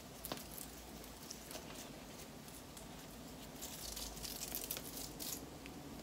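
Velcro hair rollers being pulled out of sisterlocks: faint crackling and rustling as the rollers' gripping surface lets go of the hair, busiest in the second half.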